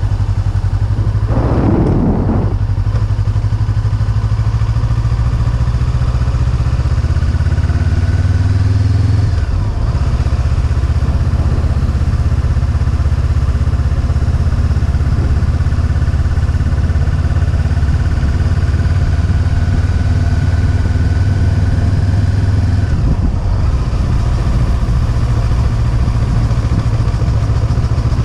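Honda motorcycle engine running steadily while riding along a road, heard from the rider's seat. The engine note shifts twice, about a third of the way in and again near the end. There is a short noisy whoosh about two seconds in.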